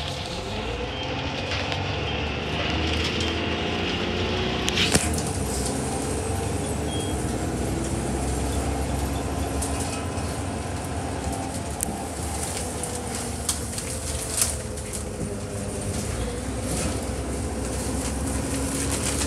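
Single-deck bus in motion heard from inside the passenger saloon: a steady engine and road rumble, with a drivetrain note that rises and falls in pitch and occasional clicks and rattles from the bodywork.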